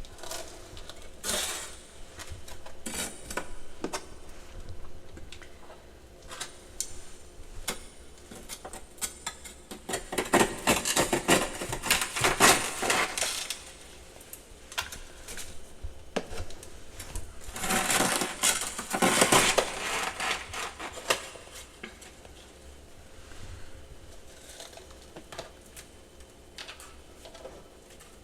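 Ice and powdery frost crunching close to the microphone: dense crackly crunches, loudest in two long stretches about ten and eighteen seconds in, with quieter scattered crackles between.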